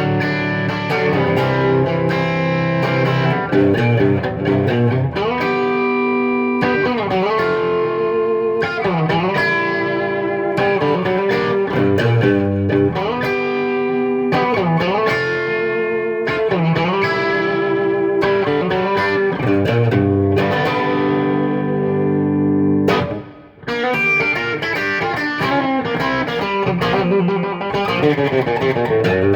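Gretsch G5126 electric guitar with DeArmond/Dynasonic-style single-coil pickups, played through an amplifier in chords and ringing notes, with a slight drive. The pitch wavers and dips now and then as notes are bent or shaken. The playing breaks off briefly about three-quarters of the way through, then starts again.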